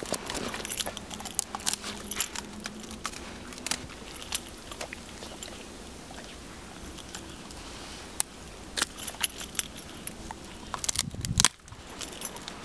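Metal ID tags on a chocolate Labrador's collar jingling in irregular bursts as the dog noses and digs in snow, with a dull thump near the end.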